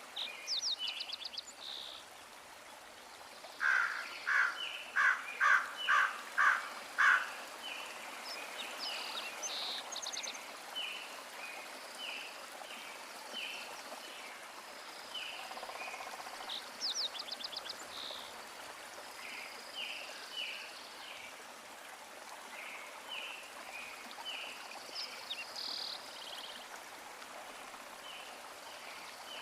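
Birds calling over a steady hiss: short chirps repeat about once a second, with a few fast trills, and a loud run of six notes a few seconds in.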